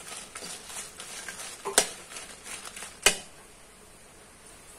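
Dry red chillies being stirred with a metal spoon in a kadai on the stove, the pods rustling and scraping on the pan with two sharp clinks of spoon on metal at about two and three seconds in. The stirring stops after about three seconds.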